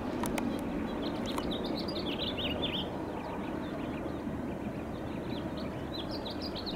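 A small bird chirping in quick runs of short high notes, about a second in and again near the end, over a steady low rumble.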